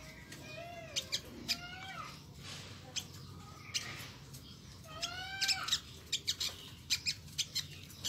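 Caged sunbird calling: quick sharp chips scattered throughout and several in a row near the end, with a few longer bending notes just after the start and about five seconds in.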